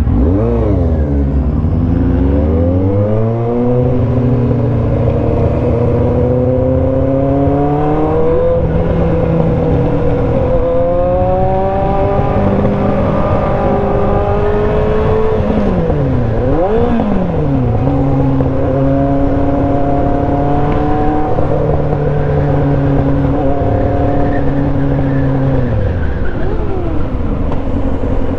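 Sport motorcycle engine heard from the rider's seat, accelerating through the gears. Its pitch climbs in long sweeps and drops sharply at each shift, with stretches of steady cruising revs between, and it eases off near the end.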